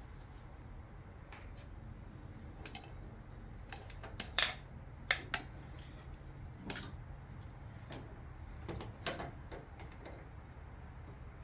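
Scattered light metallic clicks and clinks of hand tools and small metal parts being handled during engine disassembly, several in quick succession around the middle, over a steady low hum.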